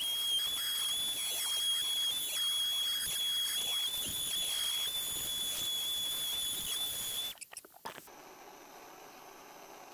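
Gas torch burning with a steady high whistle over a crackling hiss, heating a branding iron; it cuts off suddenly about seven seconds in, leaving only a faint steady background hum.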